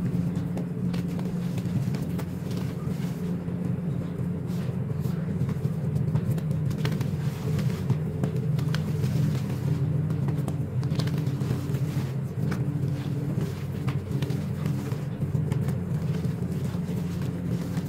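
Hands squeezing and raking a heap of crushed gym chalk and corn starch powder, played back sped up: soft crunches and light crackles, over a steady low hum.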